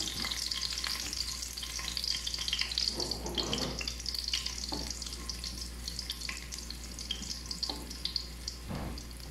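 Sliced garlic sizzling steadily in olive oil in a wok as it browns, stirred with a silicone spatula that scrapes the pan now and then.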